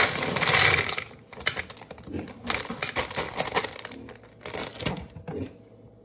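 Plastic bag of chocolate chips crinkling, then chocolate chips pouring into a clear plastic container as a quick patter of small clicks that thins out toward the end.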